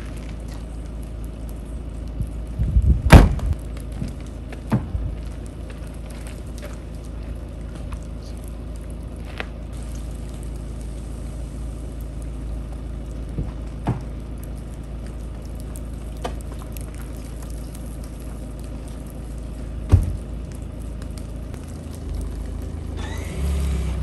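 Car tailgate slammed shut about three seconds in, followed by a few lighter knocks. A car door shuts loudly later on, and near the end the Citroën C4 Picasso's engine starts and runs, over a steady low background rumble.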